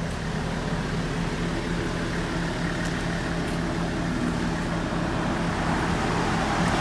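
A minibus engine idling with a steady low hum, growing a little louder near the end.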